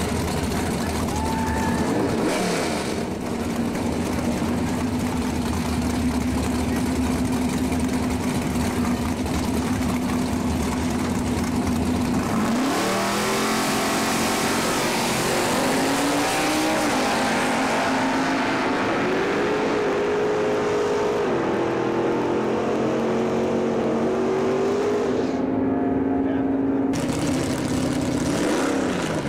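Drag car's carbureted tunnel-ram engine held at a steady pitch for about ten seconds, then about halfway through it rises sharply and runs up through several climbs and drops in pitch, as on a launch and pass down the strip.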